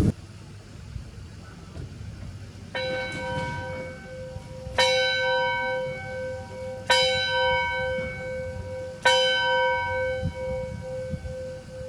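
A schoolhouse bell rung by its rope, tolling four strokes about two seconds apart. The first stroke is softer, and each one rings on under the next.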